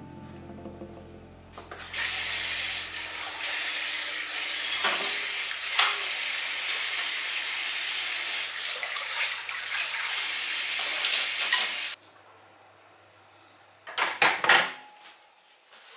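Kitchen tap running into the sink as dishes are washed: a steady rush of water with a few light clinks. The water shuts off suddenly about twelve seconds in, and a short clatter of dishes being set down follows a couple of seconds later.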